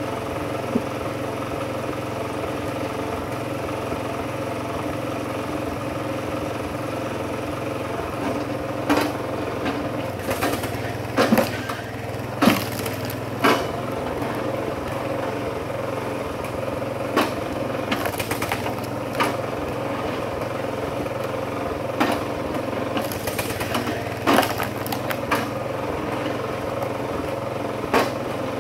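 Small gasoline engine of a Kinetic HD Super Split flywheel log splitter running steadily. From about eight seconds in, a string of sharp cracks and knocks comes as hardwood rounds are split and the pieces are handled.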